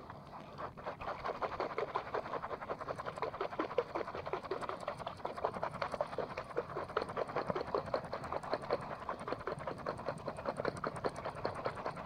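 Spinning reel cranked fast and steadily during a jigging retrieve: a rapid, even run of ticking and whirring from the reel's gears and line.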